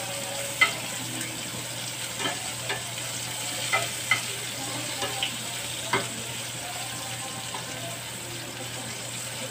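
Onion rings frying in butter in a cast-iron skillet with a steady sizzle. Metal tongs click and scrape against the pan about eight times as the rings are turned, the sharpest click about half a second in, then the sizzle runs on alone.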